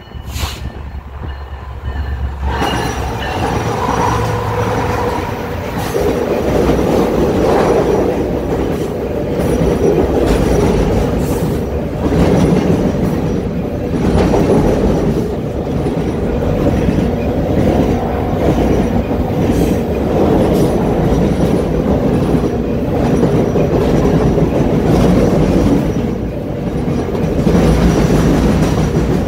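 Coal train's freight cars rolling across a steel girder railway bridge, heard from directly beneath it: a loud, steady rumble and clatter of wheels on rail that swells in about two and a half seconds in and keeps on unbroken.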